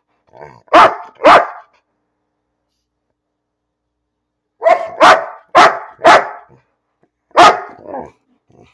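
Dog barking loudly in short single barks: two right at the start, then after about three seconds of quiet a run of six, the last one weaker.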